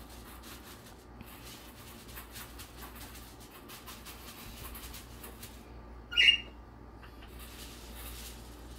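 Aluminium foil crinkling and rustling as it is pressed and smoothed by hand over a gas stovetop. About six seconds in comes one short, sharp, high squeak or chirp, the loudest sound.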